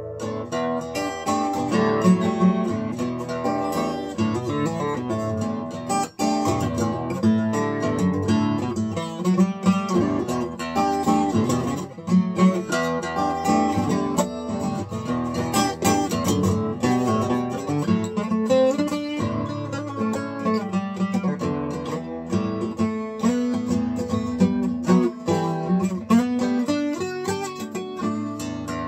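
Steel-string dreadnought acoustic guitar played solo: an unbroken instrumental passage of picked notes and chords.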